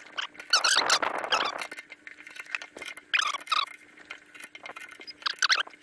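Metal squeaking as the vacuum pump's pulley nut is turned with wrenches against the held shaft: short wavering squeals in three bouts, with small clicks from the tools.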